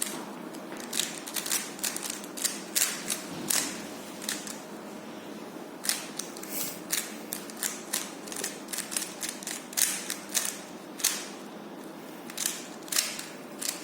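Rubik's cube being turned in quick bursts while being solved: a rapid, irregular run of plastic clicks and clacks from the turning layers, thinning out for about two seconds a little before the middle.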